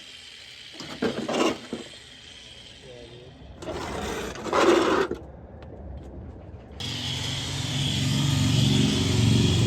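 Short scraping and clattering bursts of tool handling, then about seven seconds in a reciprocating saw starts and runs steadily, getting louder as it cuts into the car's sheet-metal trunk.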